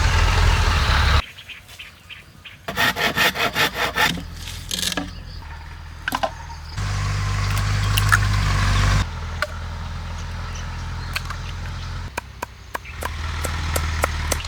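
Bamboo being worked by hand in short cut-together clips: a run of quick, even sawing strokes, about six a second, about three seconds in, then scattered knocks and taps. Stretches of steady low hum lie between them.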